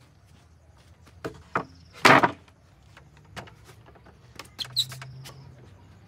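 Large plywood sheet set down onto a wooden sawhorse and a folding work table. Two light knocks, then one loud clatter about two seconds in, and later a few sharper knocks as a person climbs onto the board and lies on it.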